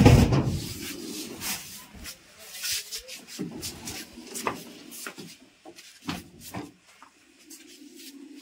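Irregular knocks, clicks and rubbing of wooden and household objects being handled and shifted about, with a dense low rumble at the start.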